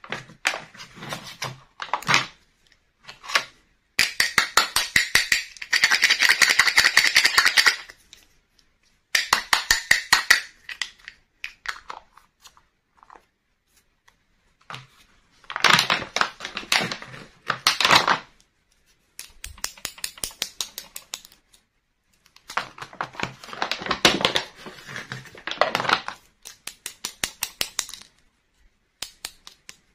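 Thin clear plastic packaging crinkling and rustling in the hands in four bursts of a few seconds each. Between them come small clicks and taps of hard plastic toy pots, lids and utensils being handled.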